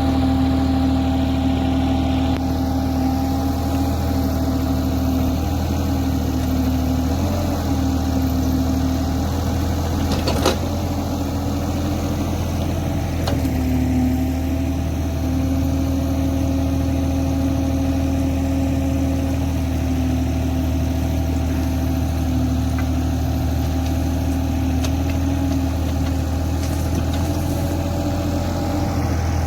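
Caterpillar 303 mini excavator's diesel engine running at a steady speed, with one sharp knock about ten seconds in.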